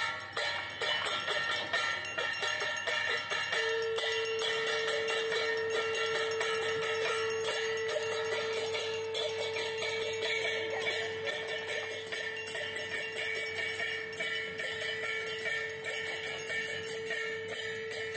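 Temple arati bells and cymbals clanging rapidly and without a break, their metallic ringing overlapping. A single long steady note joins in about three and a half seconds in and holds to the end.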